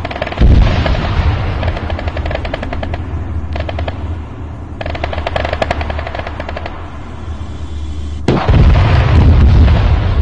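Rapid automatic gunfire in long bursts, with a loud deep blast about half a second in and a louder, deeper stretch from about eight seconds in.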